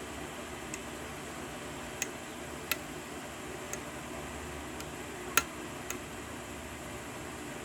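Scattered small, sharp clicks of a pick working the pins of a 6-pin Ace tubular lock during single-pin picking, about six in all, the loudest a little past halfway, over a steady faint hiss.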